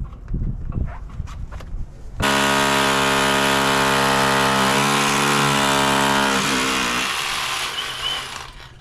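Electric power tool motor that starts suddenly about two seconds in, runs at a steady whine, then winds down with falling pitch over the last two seconds as it coasts to a stop. Before it starts there are low rumbles and a few knocks.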